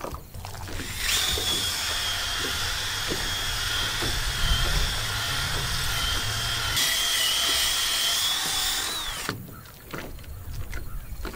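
Cordless drill turning a long, dull, rusty paddle bit through a wooden dock piling: a steady whine starts about a second in and holds for about eight seconds. Its pitch wavers near the end, then it cuts off suddenly.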